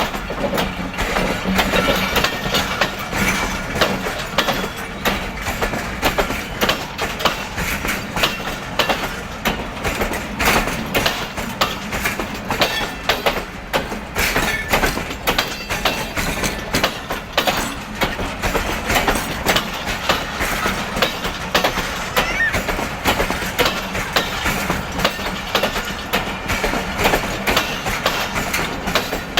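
Passenger train coaches rolling past, the wheels clattering over rail joints in a fast, steady run of clicks.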